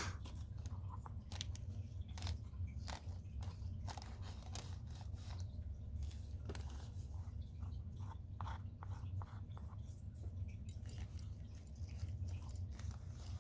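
Paintbrush dabbing and stroking white paint onto a canvas: irregular small taps and scratchy ticks, over a steady low hum.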